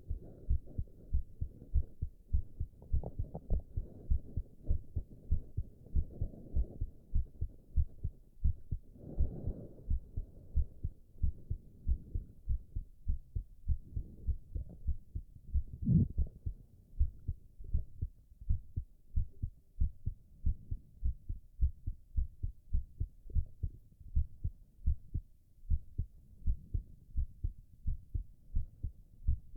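A man's heartbeat, a steady run of low, even beats, with a few short stomach gurgles, one near the end of the first third.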